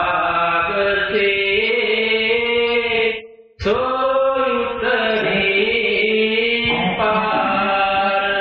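A man's voice chanting a devotional verse in long held, slowly bending notes, with one short breath gap about three and a half seconds in.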